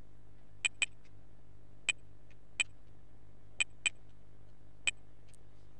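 Computer keyboard keys clicking as digits are typed one at a time: single clicks and quick pairs at irregular gaps of about a second, over a steady low electrical hum.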